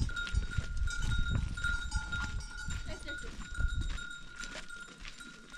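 A herd of goats milling about, with a few short bleats. A steady high-pitched tone runs underneath, and a low rumble fades out about four seconds in.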